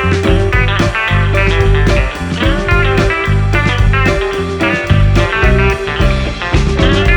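Background music: an upbeat guitar tune with a steady beat.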